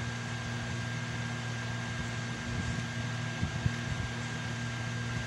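Steady low electrical hum with a faint high-pitched whine, like a running fan. A couple of small clicks come about three and a half seconds in, as a charging cable is fitted to a power bank.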